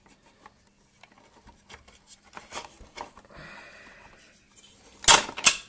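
Small clicks and taps of metal and plastic parts of a Kenwood Chef KMC510 mixer being handled during reassembly, with a brief rub, then two loud knocks about half a second apart near the end.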